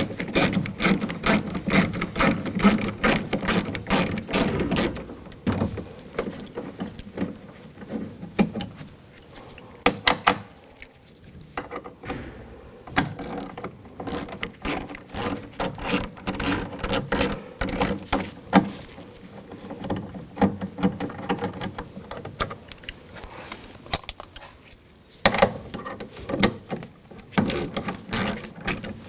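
Hand ratchet driving a 10mm socket, clicking in quick runs as screws are backed out, with short pauses between runs.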